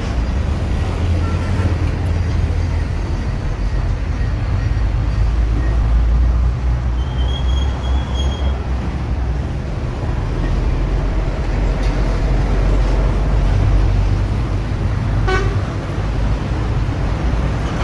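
A steady low rumble, with a short high-pitched beep lasting about a second and a half, about seven seconds in.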